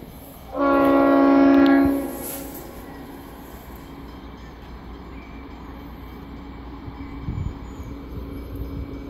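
A train horn sounds one loud blast lasting about a second and a half. A faint steady hum continues after it.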